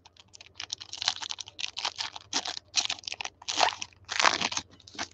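Foil wrapper of a Panini Prizm basketball card pack crinkling and tearing as it is ripped open by hand: a run of irregular crackly bursts, loudest near the end.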